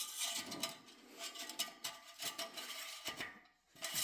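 Faint light metallic scraping and small clicks of the engine oil dipstick being slid through its tube and handled while the oil level is checked.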